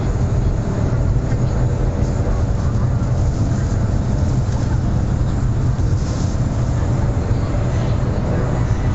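Cabin noise inside a CRH380BL high-speed electric train running at speed: a loud, steady low rumble that does not change.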